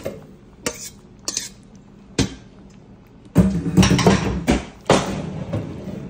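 Cookware knocking and clattering: a few separate sharp knocks, then a louder run of clatter about three and a half seconds in, and one more knock about five seconds in.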